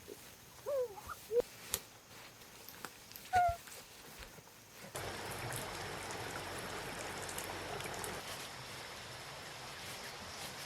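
A few short, high, curving squeals from an animal, then from about five seconds in a steady hiss of water, which starts suddenly.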